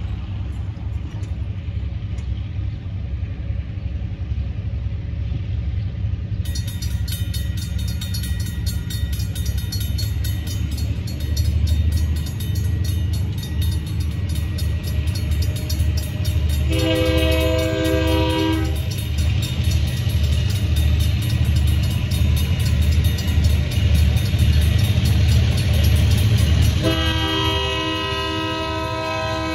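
Railroad crossing bell starts ringing rapidly a few seconds in as the crossing signals activate. An approaching EMD SW1500 switcher locomotive sounds its horn twice, once for about two seconds past the middle and again near the end, over a low throbbing rumble.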